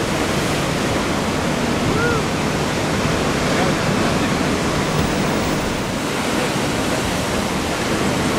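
Steady roar of ocean surf breaking, an even wash of noise without a break, with a faint short chirp about two seconds in.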